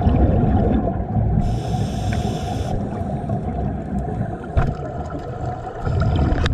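Underwater sound of scuba divers: a loud, muffled, surging rumble of exhaled bubbles from their regulators, with a brief hiss about a second and a half in.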